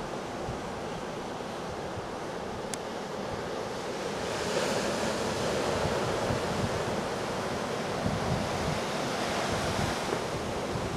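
Hurricane swell breaking on the shore: a continuous rush of surf that grows louder about four seconds in, with gusty wind buffeting the microphone.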